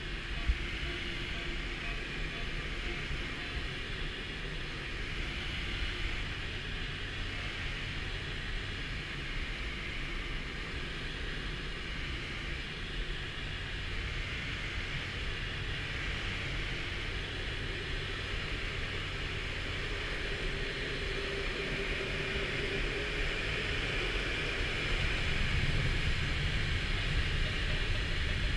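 Steady rush of airflow around the canopy of a Schleicher K13 glider, heard inside the unpowered two-seat glider's cockpit, growing a little louder about 25 seconds in. A single sharp click about half a second in.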